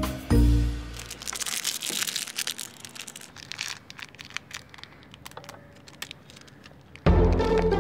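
A small Cadbury Gems candy packet being torn open and crumpled by hand: a run of crinkling and tearing crackles. Background music plays briefly at the start and comes back loud near the end.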